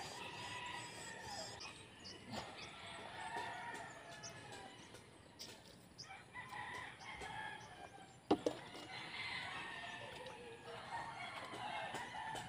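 Roosters crowing again and again, the calls overlapping. One sharp knock about eight seconds in.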